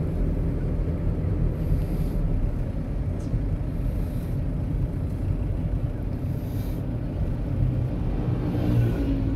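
Cabin noise of a Toyota Innova driving along a city street: a steady low rumble of engine and road.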